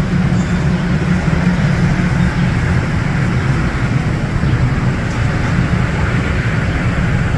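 Steam locomotive standing while taking on water, giving off a steady low hum with an even hiss over it.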